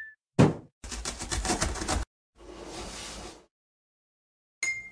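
Cartoon sound effects for an animated box-drop: a thump as the box lands, a rapid rattle lasting about a second, a whoosh, then a short bright ringing tone near the end.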